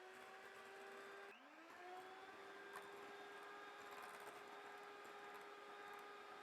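Faint steady whir of a small electric motor. Its pitch rises at the start, dips about a second in, climbs back, then holds steady.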